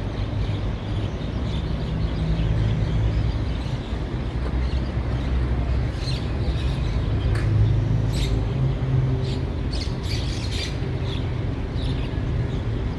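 Diesel locomotive running with a steady low rumble as it shunts a train slowly into a storage track, with a few short bird chirps over it.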